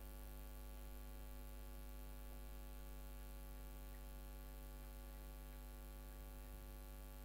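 Steady electrical mains hum, a low buzz with a ladder of overtones, unchanging throughout; nothing else stands out above it.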